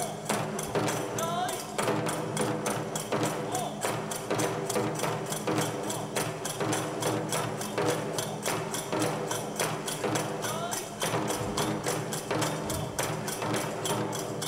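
Nanbu kagura accompaniment: a large barrel drum and small hand cymbals beating a fast, even rhythm, about six strokes a second, over sustained held tones.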